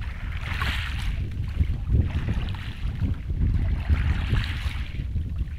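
Wind buffeting the microphone with a steady low rumble, while small waves wash on a pebble shore, swelling twice.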